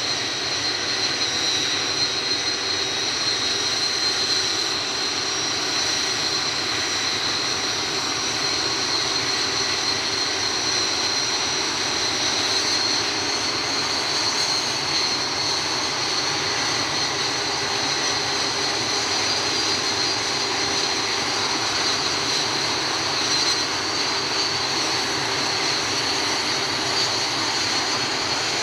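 Red Arrows BAE Hawk T1 jets' Adour turbofan engines running at taxi power, a steady high-pitched turbine whine over a constant jet rush.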